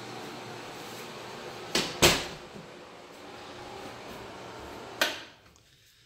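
Bathroom vanity cabinet door knocking shut, two quick knocks about two seconds in, over a steady rushing hiss. A third click about five seconds in, after which the hiss dies away.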